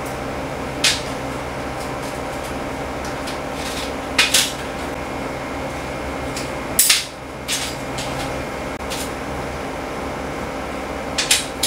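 Small flat screwdriver prying parts off a rusty model jet on a stainless steel tray: a handful of sharp clicks and taps of tool and parts on metal, over a steady mechanical hum.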